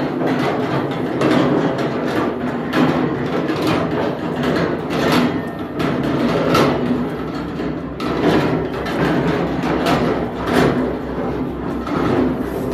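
Construction noise: heavy knocks about once a second over a steady noisy rumble of work going on around the cave.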